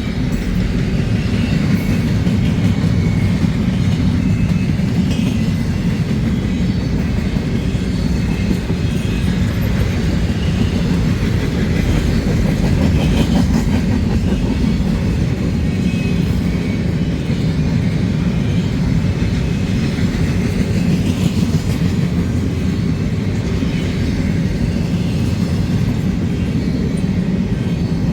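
Train rolling past, a steady low rumble of wheels and cars on the rails that holds at an even loudness throughout.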